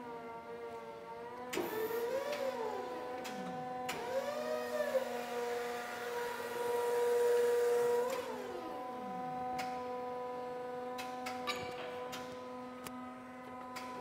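Forklift's electric motors whining steadily while it carries and sets down a log, the pitch rising and falling several times as it moves and works the lift. The whine is loudest a little past the middle, and a few light knocks come near the end.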